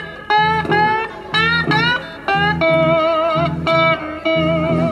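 Two guitars playing a slow blues instrumental fill: a lead guitar plays notes that glide upward and then held notes with a wide, wavering vibrato, over a second guitar's repeating bass-note accompaniment.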